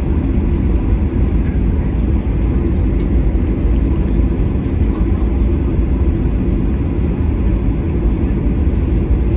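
Boeing 737-800's CFM56-7B engines running at taxi power, heard from inside the cabin as a steady low rumble.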